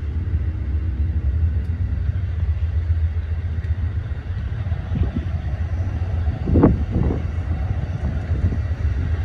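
Amtrak passenger cars rolling past, a steady low rumble of wheels on the rails, with a few louder clunks about five seconds in and again around seven seconds.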